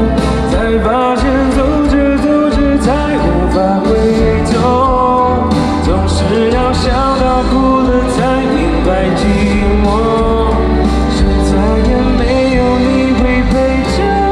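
Pop song from a live concert: a singer's melody over a band with heavy bass and regular cymbal hits.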